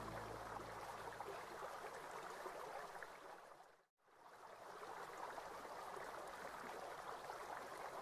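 Steady sound of running water that fades down to a moment of silence about four seconds in, then fades back up.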